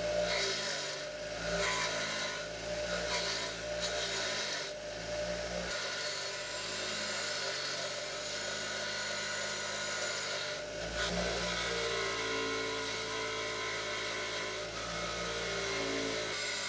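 Bench grinder running with the steel handle of an antique wrench pressed against the grinding wheel: a steady motor hum under a grinding hiss that swells and eases as the metal is pressed and moved across the wheel.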